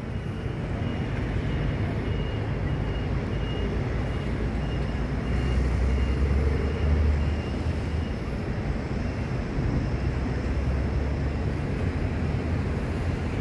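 Steady low rumble of outdoor city ambience, like distant traffic, swelling twice. A faint high tone beeps in short repeated dashes through the first half.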